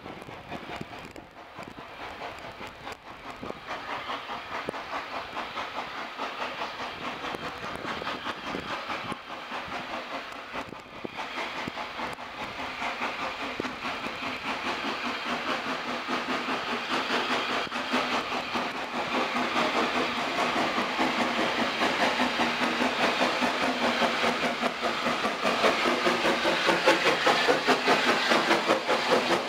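Saddle-tank steam locomotive No. 15 chuffing as it works a passenger train towards the listener. The rapid exhaust beats grow steadily louder until it draws level near the end.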